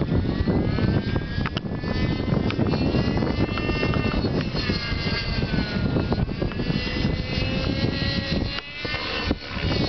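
Align T-Rex 600 Nitro RC helicopter's glow-fuel engine and rotor whining steadily overhead as it flies 3D aerobatics, the pitch sliding up and down with the changing load of the manoeuvres.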